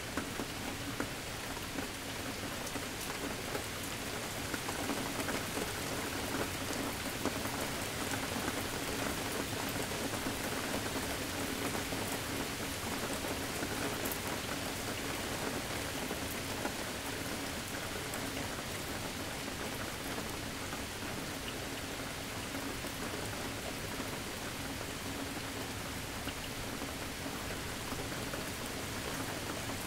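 Steady rain falling and pattering on surfaces, with scattered individual drops ticking.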